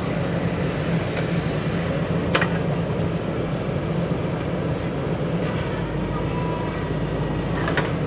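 JCB backhoe loader's diesel engine running steadily under load as the backhoe arm reaches out and digs, with a single sharp knock about two and a half seconds in.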